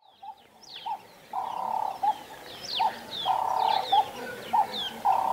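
Birds calling: repeated low cooing notes, some held about half a second and others short, mixed with many quick, high, falling chirps from smaller birds.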